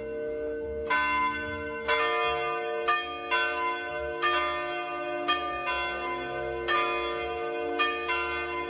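Church bells ringing, struck about once a second, each stroke's tones ringing on and overlapping with the next.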